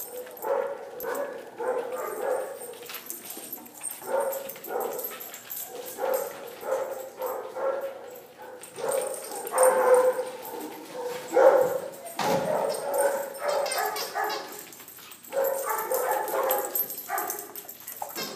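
Dogs barking and yipping in short bursts during rough play-tugging over a plush toy.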